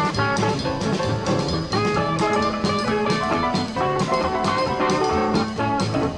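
Live electric blues band playing: two electric guitars, one of them a hollow-body, over a drum kit keeping a steady beat.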